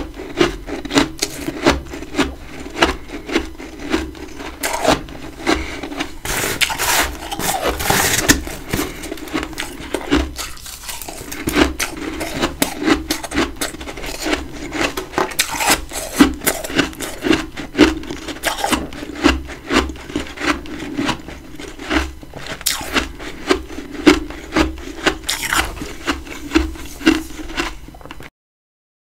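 Close-miked crunching of chunks of freezer frost being bitten and chewed: a dense crackle with loud crunches two or three times a second. It cuts off suddenly near the end.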